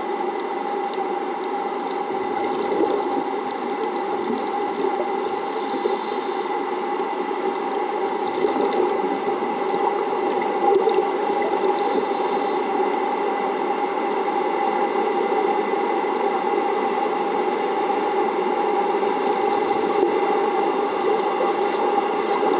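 The plant's intake pumps running, heard underwater as a steady drone with a constant hum tone. Two short high hisses come about six seconds apart, roughly a quarter and half way through.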